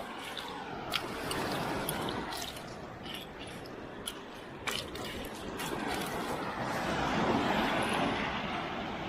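Shallow seawater sloshing and splashing as he wades and dives into the water, with a few sharp drip-like clicks; the wash swells about a second in and again near the end.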